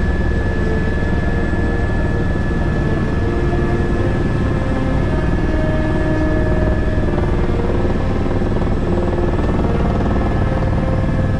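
Turbine helicopter in flight, heard from inside the cabin: a steady high whine over a dense, low, rapid beat from the rotor.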